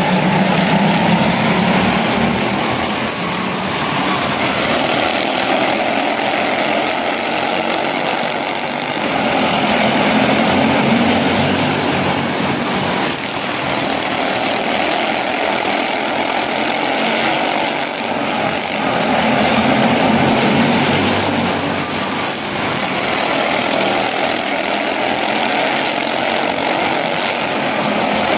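A pack of quarter midget race cars, their small engines buzzing together in a steady drone that swells and fades several times as the field laps the oval.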